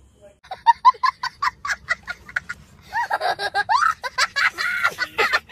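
A young boy laughing hard: a quick run of short, high-pitched 'ha-ha' bursts, then from about three seconds in longer, louder laughs that rise in pitch.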